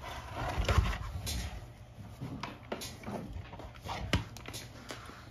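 A pressure washer's motor-and-pump unit being handled and turned over on a workbench: irregular knocks and clunks, with heavier knocks about a second in and about four seconds in.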